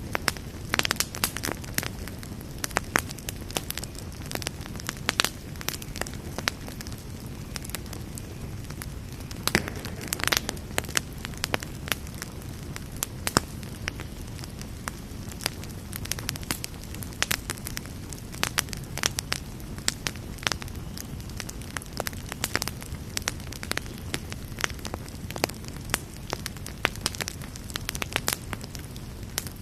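Campfire burning, with frequent irregular sharp crackles and pops over a steady low rush of flame; a quick cluster of louder pops comes about ten seconds in.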